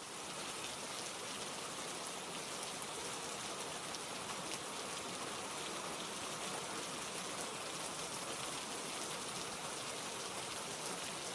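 Steady rain, an even hiss of falling drops with faint scattered patter, fading in at the start.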